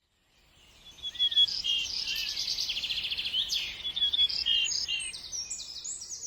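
Songbirds singing: quick high trills and short chirping phrases, fading in during the first second.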